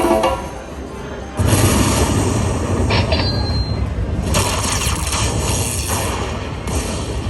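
Tiki Fire Lightning Link slot machine playing its game sound effects: a dense rumbling, crackling din begins about a second and a half in. Short bright flourishes and a brief high chime break through it several times.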